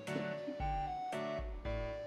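Background music: a light instrumental tune of plucked notes over a bass line, with a new note or chord about every half second.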